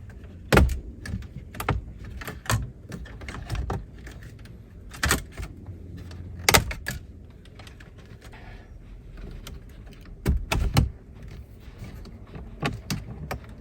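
Plastic dashboard trim panels of a 30-series Toyota Alphard being pried and handled: an irregular series of sharp clicks and knocks, with loud ones about half a second in, near the middle and a few around ten to eleven seconds in.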